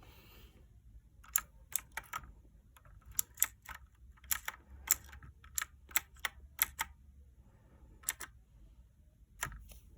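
Keys of a mechanical keyboard pressed one at a time: about twenty sharp, separate clicks at an irregular pace, most of them in the middle of the stretch.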